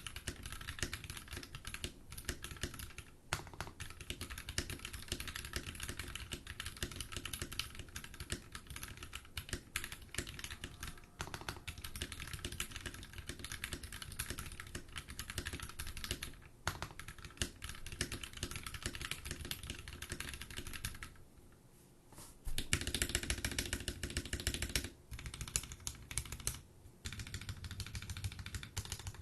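Typing on a Drop Carina mechanical keyboard with lubed Gateron Yellow linear switches, an aluminium plate and cherry-profile keycaps: fast, steady keystrokes that stop briefly about three-quarters of the way through, then resume louder.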